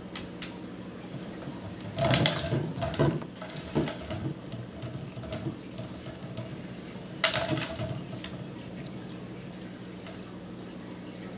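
A toy bug jar rolling and knocking on a hardwood floor as a kitten paws it, in two bursts of clatter: a longer one about two seconds in and a short one about seven seconds in. A steady low hum runs underneath.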